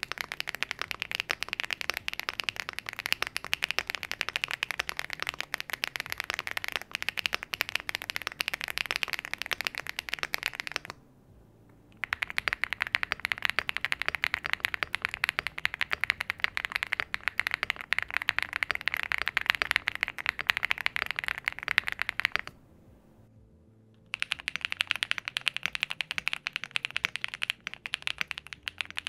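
Fast continuous typing on aluminium-case mechanical keyboards: a dense stream of key clacks. It comes in three stretches, with short quiet breaks about 11 and 22.5 seconds in.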